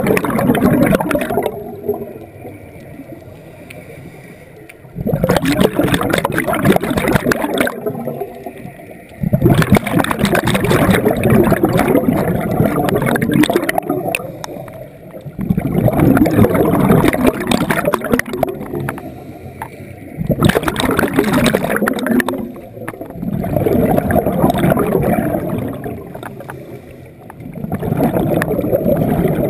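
Scuba regulator exhaust bubbles heard underwater: loud gurgling bursts lasting a few seconds, coming about every five to six seconds with each exhaled breath, with quieter stretches between them.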